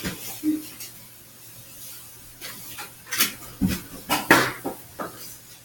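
Foam-dart blasters firing and darts striking: about half a dozen sharp clicks and knocks, irregularly spaced and bunched in the second half.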